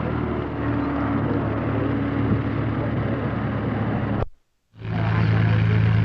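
Aircraft piston engine running steadily at low revs. About two-thirds through, the sound cuts out for about half a second at a break in the film, then comes back as a louder, steadier low drone.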